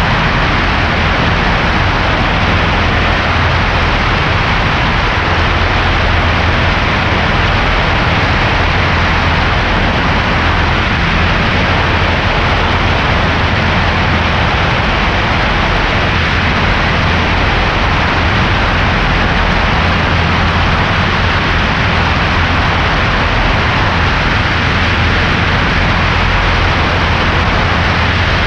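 Cessna 140A's engine running steadily in flight, with a newly fitted cylinder being broken in; a loud, unchanging rush of engine, propeller and wind noise with a low hum underneath.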